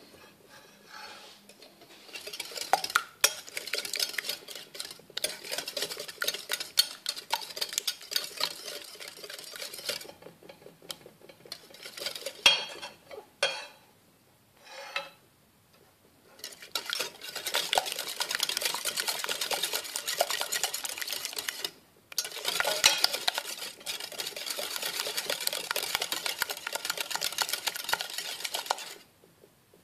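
Metal wire balloon whisk beating egg whites and sugar in a glass bowl: rapid, steady clicking and scraping of the wires against the glass, in several spells with short pauses. The mixture is being whisked over a warm water bath until the sugar dissolves, the first stage of a Swiss-style meringue.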